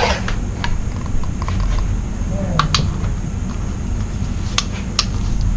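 A steady low hum with a few sharp, light clicks, most of them in the second half.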